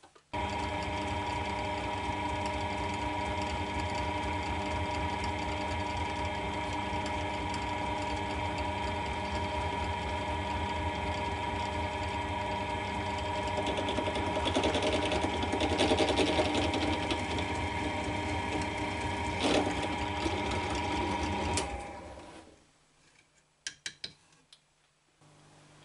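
Bench pillar drill motor switched on and running with a steady hum. About halfway through, a rougher, louder stretch comes as the bit cuts a 2.5 mm hole through thin mild steel plate. Near the end the drill is switched off and winds down, followed by a few light clicks.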